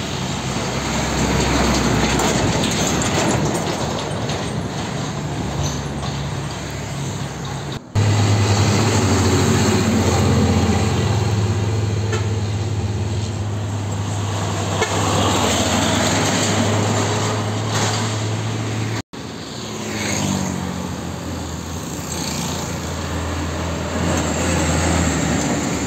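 Diesel engines of Hino Ranger trucks running past, one truck after another in three cuts, with tyre noise on the road. In the middle section a deep, steady engine drone holds for about ten seconds as a loaded truck pulls away.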